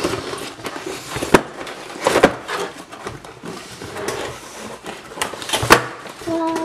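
Cardboard shipping boxes being opened by hand: flaps scraping and rustling, with several sharp knocks as the boxes bump and are set on the wooden table. A short held note, like a child's hum, comes in near the end.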